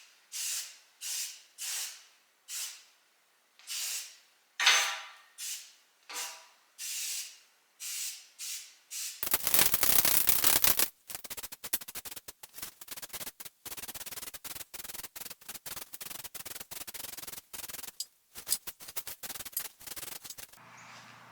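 Sandblasting cabinet gun blasting: a string of short hissing blasts about every two-thirds of a second, then a loud continuous blast about nine seconds in, then rapid stop-start blasting that ends near the end.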